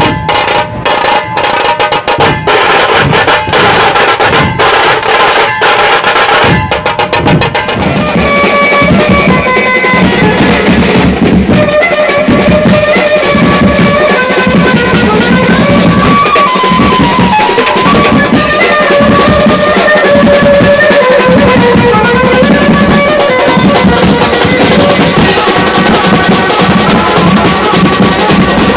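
A procession drum group playing loud, fast drumming on snare-type drums with bass-drum beats. About eight seconds in, a pitched melody joins and carries on over the drumming.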